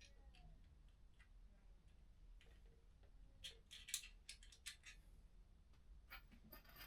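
Near silence: room tone, with a cluster of faint clicks about three and a half seconds in and a few more near the end.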